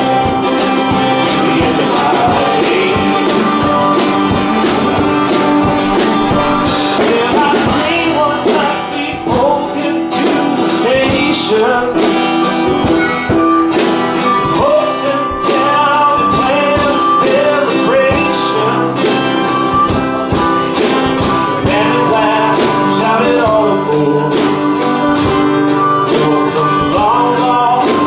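Live band music: a man singing over strummed acoustic guitar, with a steady beat.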